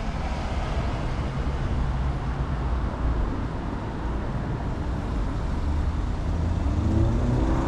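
Steady road traffic noise: a low rumble of passing and idling motor vehicles.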